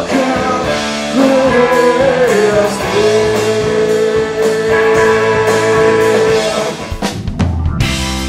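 Rock band playing live with electric guitar and drums while a male voice sings and holds one long note. About seven seconds in, the music cuts abruptly to a different piece with sharp drum and cymbal hits.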